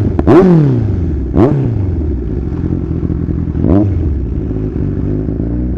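Kawasaki Z1000's inline-four engine idling, blipped on the throttle three times: near the start, about a second and a half in, and nearly four seconds in, each rev rising and falling quickly back to idle.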